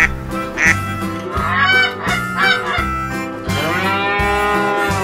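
Farm-animal calls: a few short calls that bend in pitch, then one long held call near the end, over background music.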